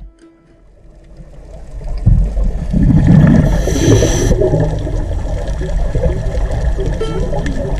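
Underwater recording of the sea: a low rumbling, gurgling water noise that builds up over the first two seconds and then stays loud, with a short hiss about halfway through.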